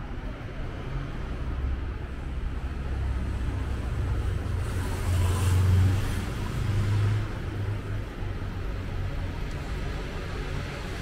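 City street traffic: cars passing on the avenue with a steady low rumble, one passing loudest about five to six seconds in.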